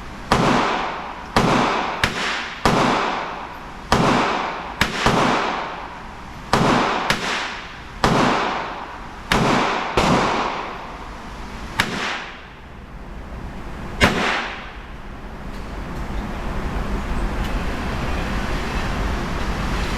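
A string of .22 gunshots from a single-action revolver, roughly one a second, each sharp crack followed by a long fading echo; the shots stop about fourteen seconds in, leaving a steady low background rumble.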